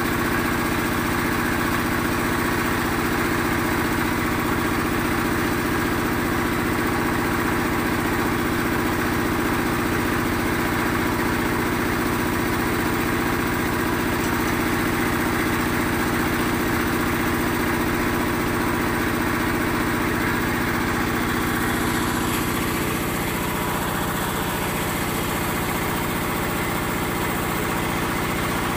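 Small stationary engine driving a concrete mixer and block-press machine, running steadily with an even hum. Its tone shifts slightly about three-quarters of the way through.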